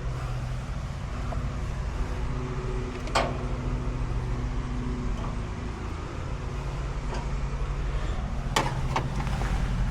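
Bryant central air-conditioning condenser unit running with a steady hum, with a couple of sharp clicks about three seconds in and again near the end.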